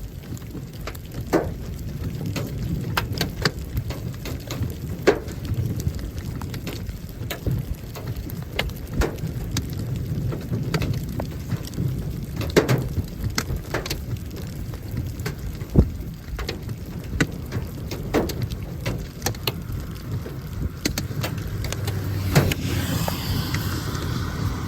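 Scattered raindrops ticking irregularly on a vehicle, over a steady low rumble from the car.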